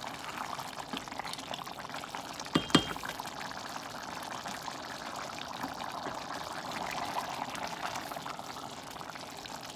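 Rice stuffing simmering in a stainless steel saucepan, the wet rice and broth bubbling and crackling steadily as a wooden spoon stirs through it; the water has not yet been absorbed and the rice is still only partly cooked. One sharp knock a little under three seconds in.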